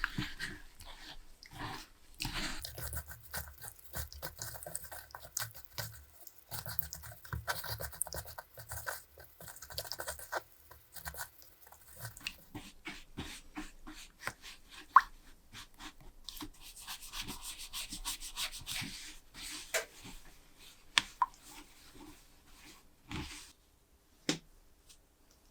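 Irregular scraping and rubbing with many scattered clicks and knocks, one sharp knock about fifteen seconds in.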